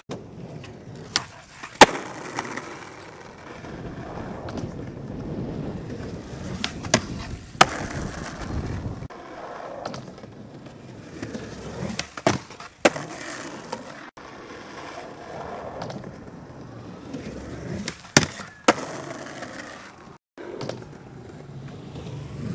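Skateboard wheels rolling over concrete, with sharp board clacks in pairs about half a second apart, several times: tail pops and landings of tricks on a ledge.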